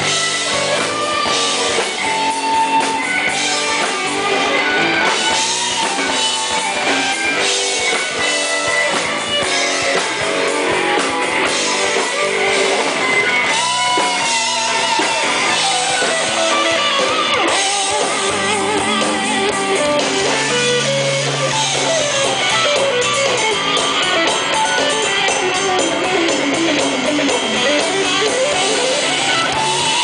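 Metal band playing live: electric guitar lead lines over a drum kit.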